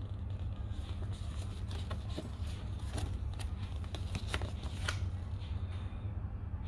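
Paper pages of a printed instruction manual rustling and crackling as they are handled and turned, over a steady low hum.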